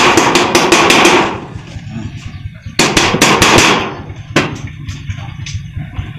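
Rapid taps on the galvanized sheet metal of a box gutter corner as the fold is worked down. A fast run of about eight strikes in the first second, another short run about three seconds in, then a few scattered single taps.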